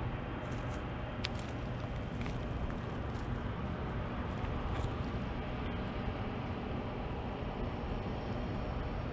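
Idling locomotive diesel engine, a steady low hum, with a few short faint high chirps over it.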